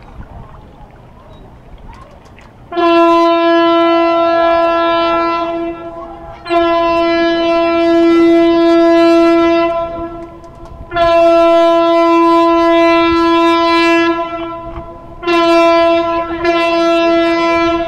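A horn salute for a departing freighter: one steady, single-pitched air horn sounds three long blasts of three to four seconds each, with brief gaps between them. Near the end it gives a short blast, then starts another long one.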